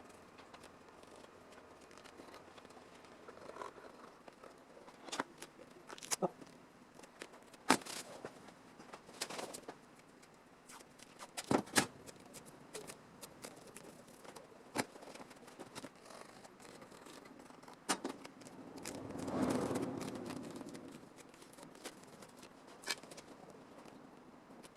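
Irregular clicks, taps and knocks of hand work with tools on car body sheet metal. About 19 seconds in there is a longer scraping rush that swells and fades over roughly two seconds.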